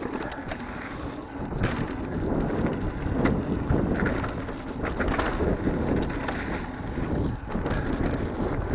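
Mountain bike rolling fast down a dirt singletrack: tyres on loose dirt and stones, with scattered clicks and knocks from the bike rattling over the bumps, under heavy wind noise on the microphone.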